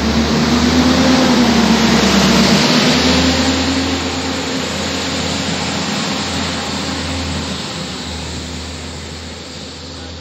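ATR 100 articulated diesel railcar pulling away and passing close by, its diesel engine running under power. The sound is loudest in the first few seconds, then grows steadily fainter from about four seconds in as the train moves off down the line.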